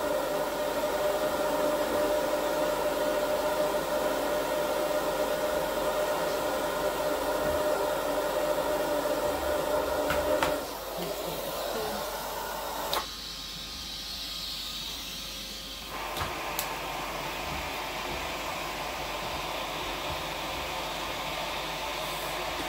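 Vacmaster 2.5-gallon, 2-peak-horsepower shop vac running steadily while vacuuming. About halfway through its steady hum changes and its sound drops back, as the airflow at the nozzle changes. There are a couple of short knocks.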